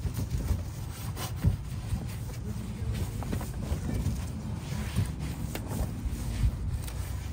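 Microfiber towel rubbing over a chrome exhaust tip trim in irregular wiping strokes, with a few small knocks over a low steady rumble.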